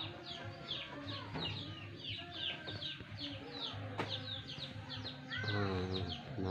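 Chickens: a steady run of short, high, falling peeps, several a second, typical of chicks, with a louder cluck about five and a half seconds in.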